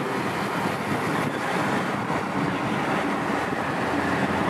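Steady rushing noise of a vehicle driving along a wet road, with wind buffeting the microphone.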